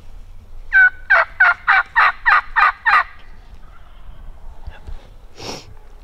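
A series of eight turkey yelps, loud and evenly spaced at about three a second, each note breaking in pitch. A couple of seconds later there is one short, noisy burst.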